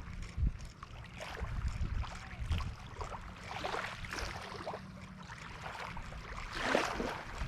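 Wind buffeting the microphone outdoors, a fluctuating low rumble, with a faint steady hum for the first five seconds and scattered faint ticks.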